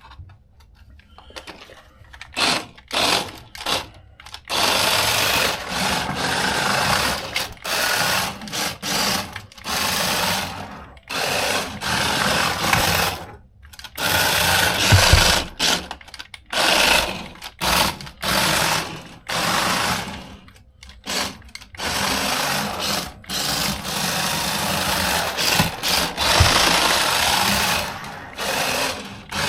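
Small brushed electric motor of a cheap 1/24-scale RC drift car whirring in on-off bursts. Its throttle is not proportional, so the motor is either at full speed or off. There are a few short bursts early, then longer runs with brief gaps.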